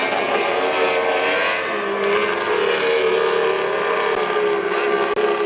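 Racing outboard engines of several boats running flat out together, a steady, overlapping engine drone whose pitch shifts slightly as the boats turn.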